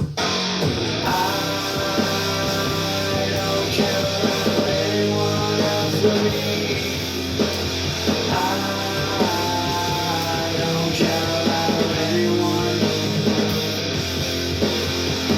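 Rock music with distorted electric guitar and drums, with a singing voice.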